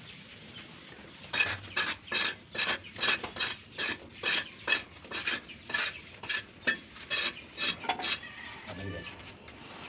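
Mason's steel trowel scraping and working cement-sand mortar in quick, regular strokes, about three a second, stopping about eight seconds in.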